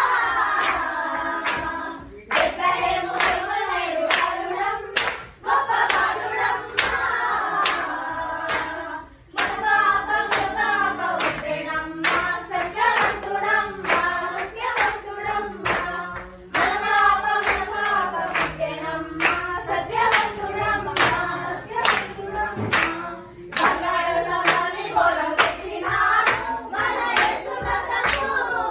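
A group of young voices singing a Telugu Christmas folk carol together, line by line with short gaps between phrases, and hands clapping along to the beat.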